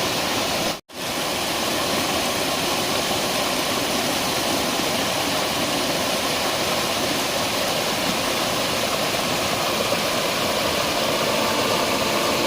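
Steady rush of water falling at a waterfall, cut off for a split second about a second in.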